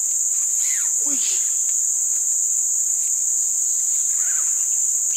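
Steady, high-pitched drone of insects that holds unbroken throughout. A brief falling call or cry sounds about a second in.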